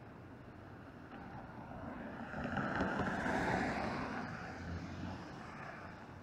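A car passing on wet pavement: its tyre hiss swells to a peak about halfway through and fades away.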